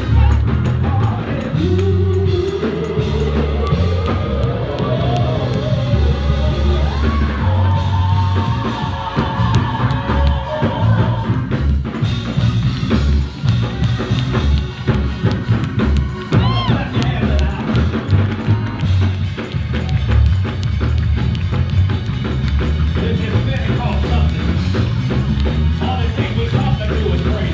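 Live church band music with a drum kit and heavy bass keeping a steady beat, and voices singing over it at times.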